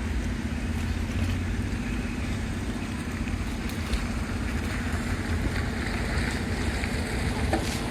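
Steady engine drone with a low rumble and a constant hum, under wind noise.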